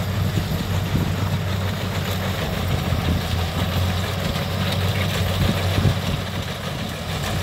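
Kubota combine harvester working through lodged rice: its diesel engine runs at a steady low drone, with a constant mechanical rush over it.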